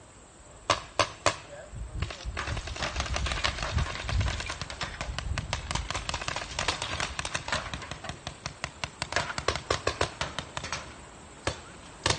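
Paintball markers firing: a few single sharp pops, then long rapid runs of shots, several a second, with a short lull before a few more shots near the end.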